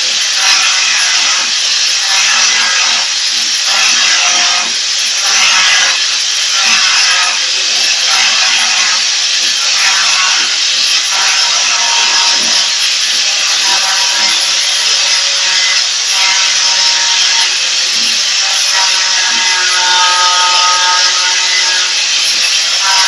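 Rough, repeated scraping or rubbing strokes, like a tool working a hard surface, with a steady squealing tone joining in after about nineteen seconds.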